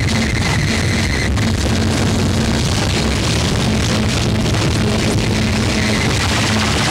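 Loud, dense heavy-metal-style noise music, distorted and chaotic, with a repeating low note and a high pitched tone.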